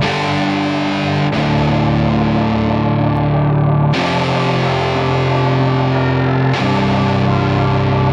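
Instrumental backing music with heavily distorted electric guitar chords held over a steady bass, changing chord every few seconds.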